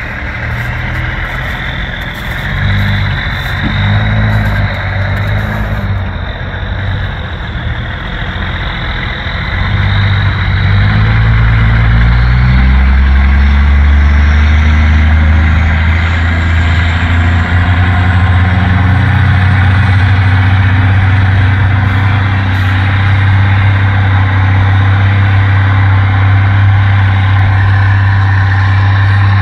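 Heavy diesel truck engines under load as a 1985 Kenworth W900B wrecker tows a dump truck: the engine note steps up and down through gear changes for about the first ten seconds, then gives way to a loud, steady, deep diesel drone.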